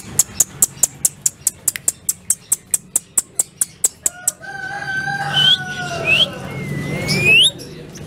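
A rapid run of sharp clicks, about five a second, for the first four seconds. Then an Alexandrine parakeet gives a drawn-out call followed by three quick rising whistles.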